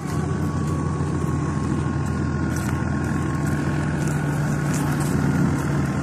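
An engine running steadily, a constant low hum with a faint high whine over it, cutting in abruptly at the start.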